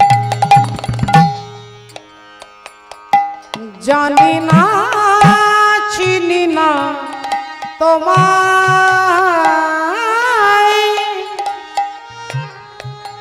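Instrumental interlude of devotional kirtan music. Heavy hand-drum strokes at the start give way to a melodic lead line of ornamented, sliding notes over light percussion, and the drums come back near the end.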